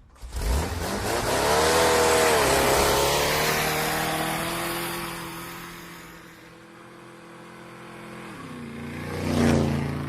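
A motor vehicle engine revving up, then running steadily as it fades into the distance. Near the end another vehicle approaches and passes close by in a loud swell, and its pitch drops as it goes away.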